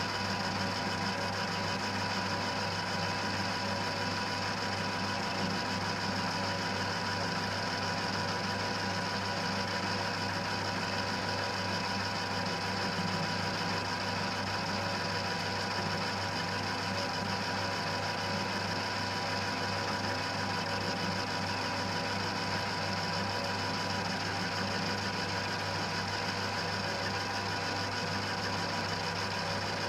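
1940s Colchester lathe running steadily, its spindle turning in tightened bronze bushings kept lubricated by drip oilers, with a constant hum and a steady whine.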